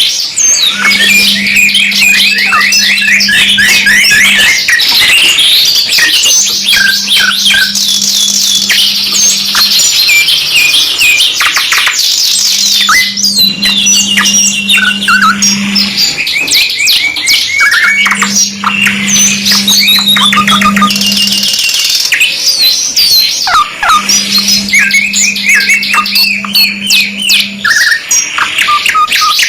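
Domestic canaries singing without a break, two birds' song together, in fast runs of rapidly repeated notes mixed with chirps and squeaky calls. A low steady hum sounds underneath in stretches of three to four seconds, about every six seconds.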